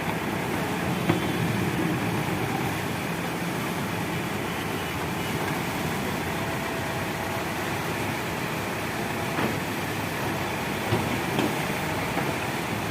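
Diesel engine of working earth-moving machinery running steadily, with a few short knocks and clanks.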